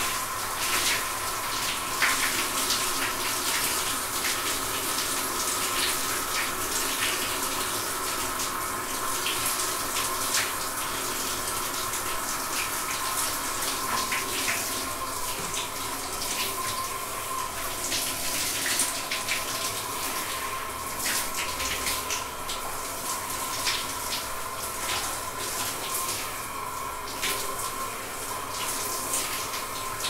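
Shower running steadily: a constant hiss of falling spray, dotted with many small, sharp splashes of drops.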